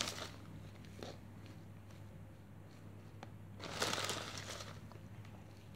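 Dry sphagnum moss rustling and crinkling briefly as it is pressed onto the bark of a small plastic orchid pot, about four seconds in, after a couple of faint clicks, over a low steady hum.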